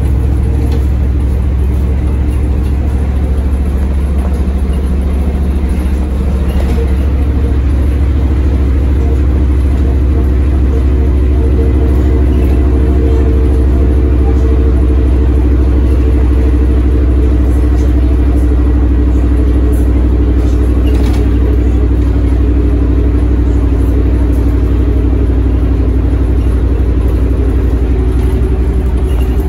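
LiAZ-677MB city bus engine running steadily, a loud low hum that holds its pitch.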